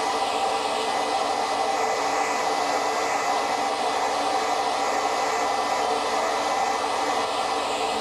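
Handheld hair dryer running steadily: an even whir of rushing air with a thin high whine held on one pitch.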